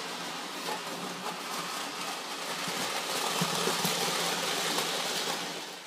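Lionel O gauge toy trains running on three-rail tinplate track: a steady rolling noise with a low hum, getting a little louder partway through and fading out quickly at the end.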